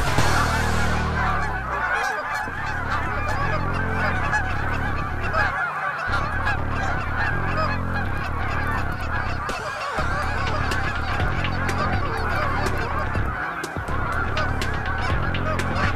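A large flock of wild geese calling overhead: a dense, continuous chorus of many overlapping honks that never lets up.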